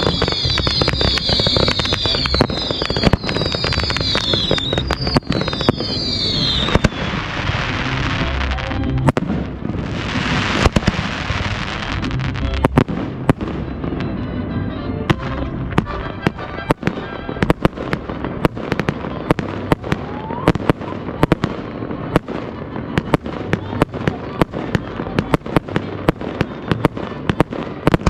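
Aerial fireworks display: shells bursting, with a stretch of dense crackling about seven to thirteen seconds in. Then, from about halfway, comes a rapid barrage of sharp bangs.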